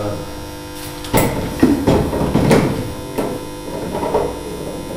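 A handful of knocks and clunks as a device on a cord is picked up and handled on a wooden ledge, over a steady electric hum.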